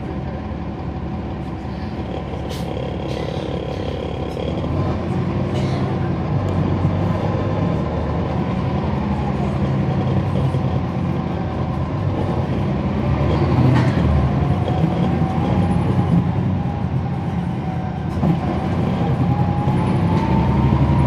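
Cummins ISL9 inline-six diesel of a NABI transit bus, heard from inside the bus, running under load. It grows louder about five seconds in, and a thin whine rises slowly in pitch over the last several seconds.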